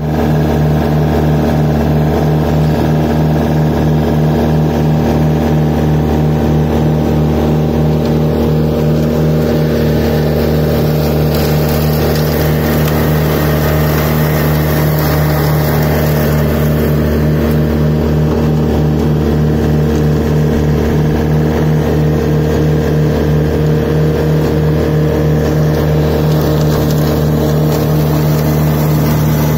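Antonio Carraro TC5800F compact tractor's diesel engine running steadily at working speed while it drives a mulcher shredding grass and brush.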